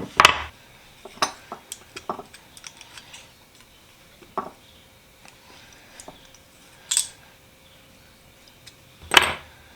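Steel pliers being handled and set down on a workbench: scattered light metal clicks and clinks, with a louder clack near the end.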